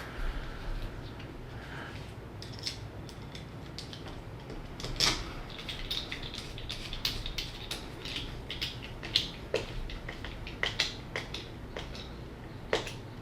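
Light clicks and taps of small hand tools and transmission parts being handled, scattered irregularly every second or so over a low steady hum.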